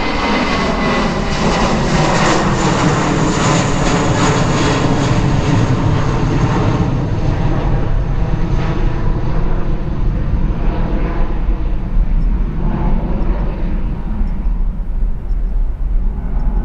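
Airbus A319's IAE V2500 turbofan jet engines, loud and steady as the airliner passes, with a whine that falls slightly in pitch early on and whose high part fades in the second half.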